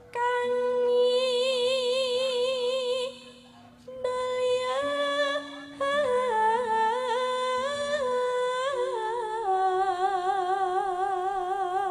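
A sinden, a female Javanese gamelan singer, singing a slow solo vocal line, holding long wavering notes with vibrato and ornamented turns, with a short break about three seconds in. A faint low steady tone sits beneath the voice.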